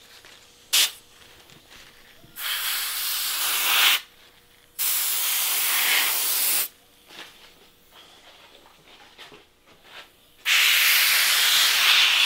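Airbrush spraying paint onto a deer mount's ears, hissing in three bursts: one about two seconds in, one near the middle, and a longer one from about ten seconds in. There is a short sharp click just under a second in.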